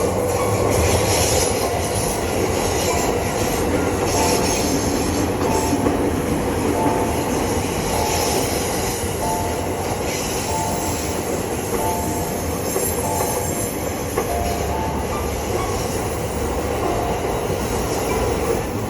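Japanese level crossing warning bell ringing over and over in an even pattern, over a continuous rushing noise. A low rumble joins in near the end.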